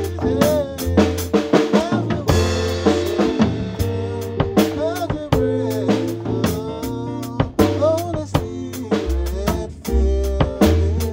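Male voice singing a gospel song with keyboard accompaniment and a drum kit keeping a steady beat.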